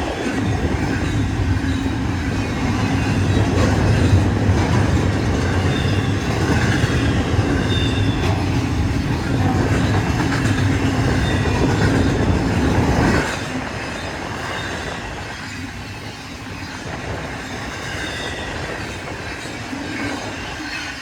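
Union Pacific freight train rolling past: a heavy rumble of railcars on the track, with faint wheel squeal. The rumble drops off sharply about two-thirds of the way through, leaving a quieter rolling noise.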